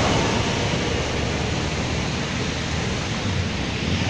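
Muddy floodwater rushing and churning across a flooded street in the wake of a car driving through it: a steady rushing noise that eases a little after the first second.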